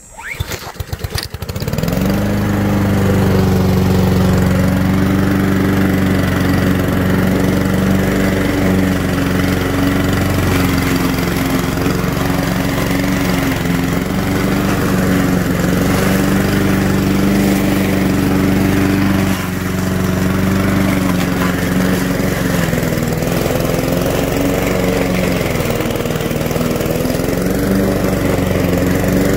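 Honda GCV160 single-cylinder four-stroke lawnmower engine started and catching within about two seconds, then running steadily at full speed. Its pitch sags and recovers in places as it cuts through deep, overgrown grass, with a brief dip about two-thirds of the way through.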